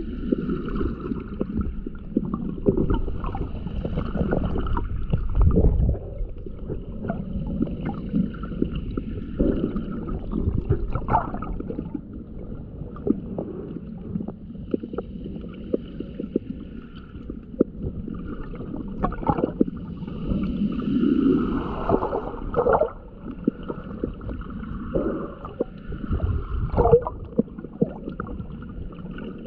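Muffled underwater sound picked up by a camera submerged in shallow sea water: irregular sloshing and gurgling with occasional dull knocks and surges.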